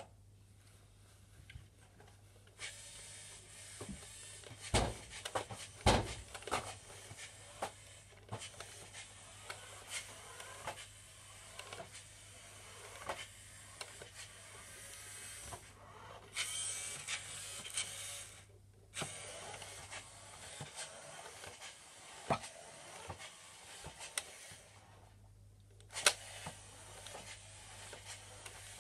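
Small electric motor and gears of a toy remote-control car whirring in spurts, with several sharp plastic knocks and bumps.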